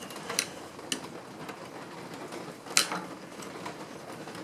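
A few sharp clicks and knocks from the parts of a reassembled No. 5 bench plane being handled and checked, the loudest about three seconds in.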